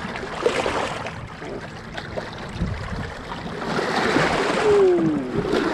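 Lake water splashing and sloshing against shoreline rocks around a hand holding a smallmouth bass in the shallows to revive it. The splashing grows louder about four seconds in.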